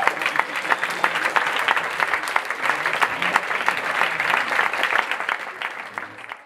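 Audience applauding, a dense patter of many people clapping that fades out near the end.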